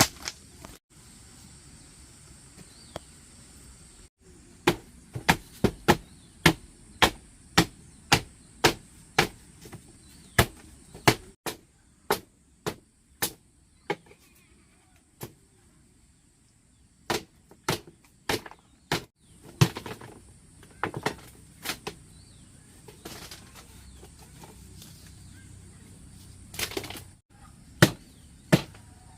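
Runs of sharp hand-tool strikes, about two a second, in groups separated by short pauses, during work on a rebuilt kitchen floor.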